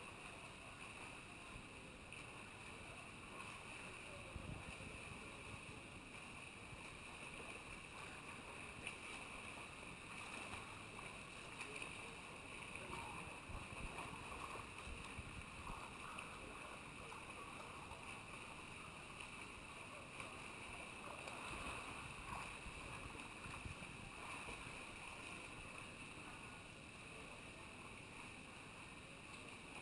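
Faint indoor swimming-pool ambience: distant, irregular splashing of swimmers doing front crawl over a steady hiss.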